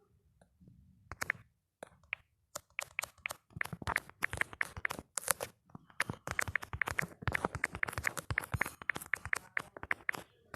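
Typing on a keyboard: a few scattered key clicks, then fast, steady clicking, several keystrokes a second, from about two and a half seconds in until near the end.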